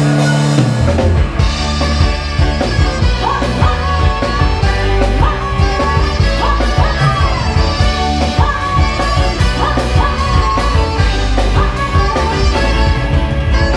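Live band playing an upbeat pop song: drum kit driving a steady beat under electric guitars and a bass, with a gliding lead melody on top.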